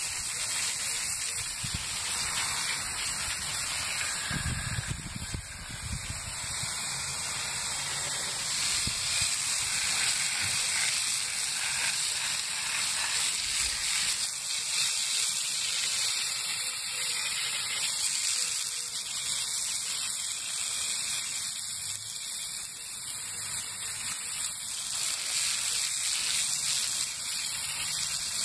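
Water from a garden hose spraying onto the hot coals of a burnt-out tree stump, hissing steadily as it flashes to steam.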